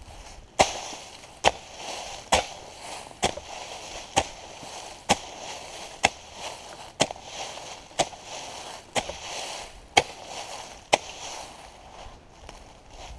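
Chingadera 40 fire hoe chopping with steady repeated strokes, about a dozen sharp hits just under one a second, with a rough scraping sound between strokes.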